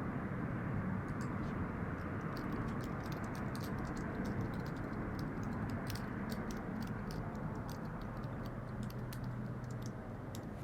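Room tone: a steady low hum and rumble, with many small light clicks scattered through most of it.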